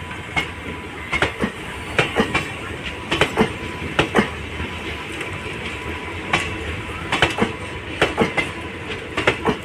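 Passenger train coaches rolling slowly past, their wheels knocking over rail joints in quick double clacks every second or so over a steady rumble.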